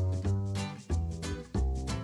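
Instrumental background music: a run of short pitched notes over a bass line.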